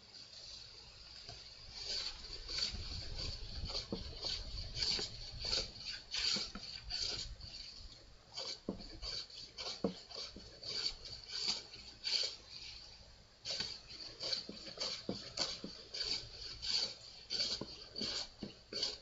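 Hand plane shaving wood in repeated short strokes, about two a second, starting about two seconds in.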